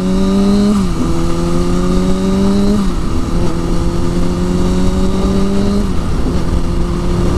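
Sport motorcycle engine pulling through the gears: its pitch climbs gently, then drops sharply at each of three upshifts, about one, three and six seconds in. A steady rush of wind and road noise runs under it.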